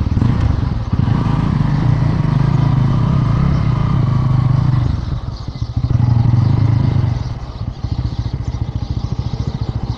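Bajaj Pulsar N160's single-cylinder engine running as the motorcycle pulls away at low speed. The throttle opens again about six seconds in, then the engine settles to a steady low-speed run.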